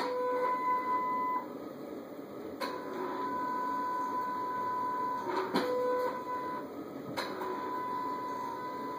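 Electronic throttle body on a 2006 Ford F-150 that cranks but won't start, making an odd steady high whine. The whine comes in three stretches of a few seconds each, with a click each time it starts or stops.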